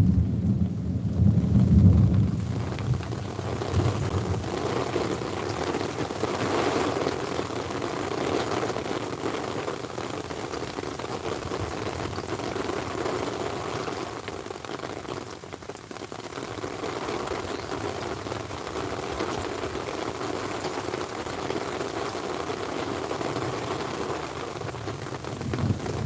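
Thunderstorm: a low rumble of thunder in the first two or three seconds fades into steady falling rain, and another rumble starts to build near the end.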